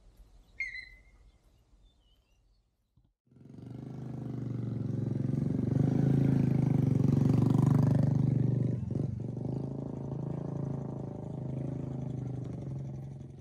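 Motorcycle engine running close by with a steady low hum. It swells in after about three seconds of quiet, holds, then eases off near the end. A brief high chirp sounds once in the quiet opening.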